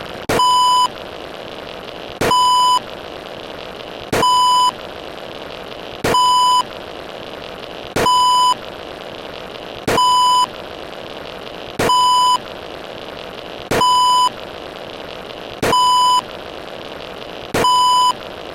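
A high-pitched electronic beep sounding ten times, each about half a second long and about two seconds apart, over a steady hiss.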